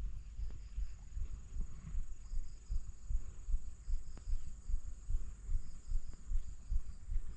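Insects chirping in the grass, with a steady high buzz and short repeated chirps, over soft low thumps that recur about twice a second.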